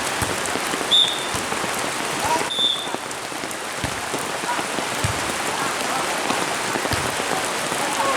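Heavy rain pouring steadily, with two brief high-pitched tones, one about a second in and another about two and a half seconds in.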